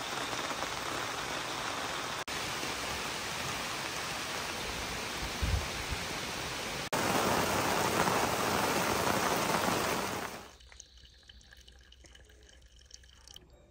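Steady rain falling through the forest and onto a pickup truck's bed cover, heavier from about seven seconds in. It cuts off suddenly about ten seconds in.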